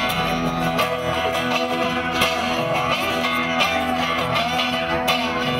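Guitar-led band music: plucked and strummed guitars playing a tune.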